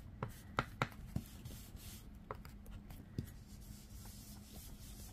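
A foam ink blending tool tapped a few times on an ink pad, making sharp little ticks, then rubbed over paper with a faint scratchy scuffing.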